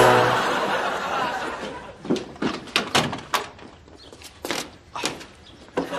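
Audience laughter dies away over the first two seconds. Then come irregular wooden knocks and bumps, about eight of them, as a wooden window frame is pushed and knocked by a man climbing in through it.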